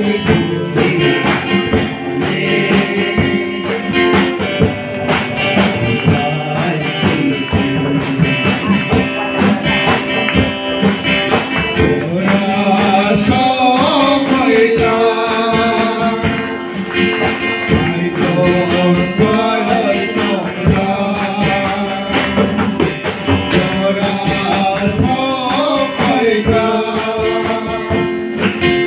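A group of men singing a Christian song together through microphones and a PA, with instrumental backing.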